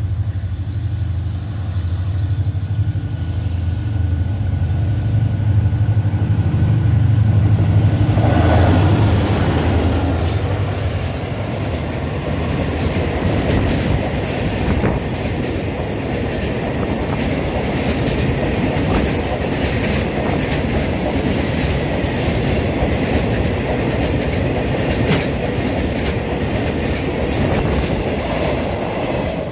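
A diesel-hauled freight train passing close. The locomotive's engine goes by with a deep low note during the first nine seconds or so, then a long string of tank wagons rolls past with a steady rushing noise and repeated clicks of wheels over rail joints.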